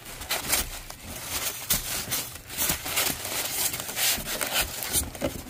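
Packing material being handled: tissue paper and bubble wrap rustling and crinkling, and a styrofoam block rubbing and scraping against cardboard, in a continuous run of irregular rustles.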